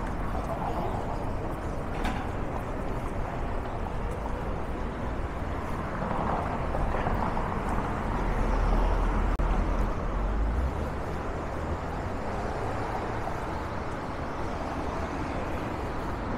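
City street traffic noise, a steady wash of passing vehicles, with a deeper rumble that swells for a couple of seconds past the middle as a heavier vehicle goes by.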